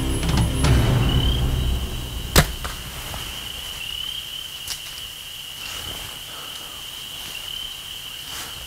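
Music fades out, and about two seconds in a bow is fired once: a single sharp snap of the string releasing the arrow. A fainter click follows a couple of seconds later.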